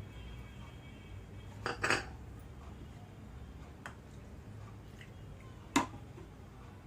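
Kitchen utensils knocking and clinking while a milkshake is prepared: a double clack about two seconds in, a faint tick near four seconds and a sharp clack near six seconds, over a low steady hum.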